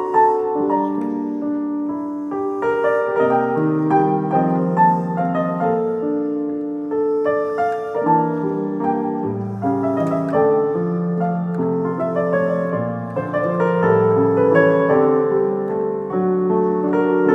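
Solo piano playing a slow, lyrical waltz-like melody over sustained chords, notes ringing and overlapping.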